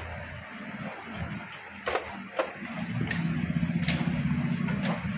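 Sharp clicks and knocks of an inverter's casing and plastic front panel being handled and pulled apart, the loudest two about two seconds in. A steady low buzzing hum sets in about halfway through and holds until near the end.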